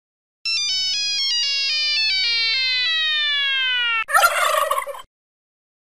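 Funny Nokia phone tone: a run of electronic notes stepping down in pitch, then sliding down in one long fall. About four seconds in it breaks into a short noisy burst.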